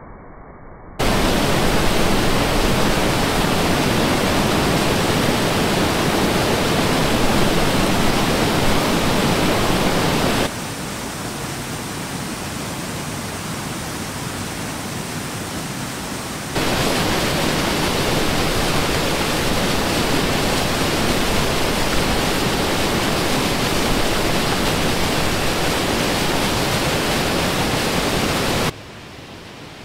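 Swollen forest stream rushing and churning over rocks in whitewater rapids: a loud, steady rush of water. It drops to a softer level about ten seconds in, comes back loud some six seconds later, and falls away near the end.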